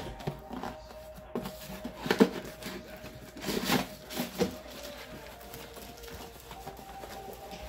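Cardboard packaging and air fryer accessories being pulled out of an air fryer oven's compartment: cardboard scraping and rustling with a series of knocks, the loudest about two seconds in.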